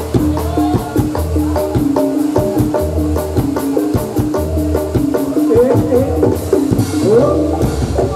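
Javanese gamelan music accompanying a jathilan horse dance: kendang drums and struck pitched percussion playing a fast, steady rhythm.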